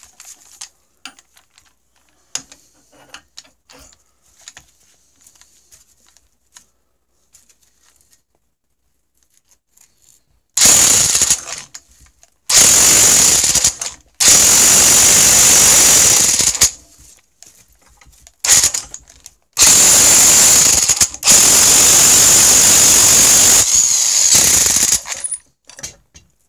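Electric impact wrench hammering on the 19 mm centre bolt of a flywheel puller, in about six bursts of one to three seconds over a steady high whine, pulling a snowmobile engine's flywheel off its crankshaft taper. Small handling clicks before the first burst, about ten seconds in.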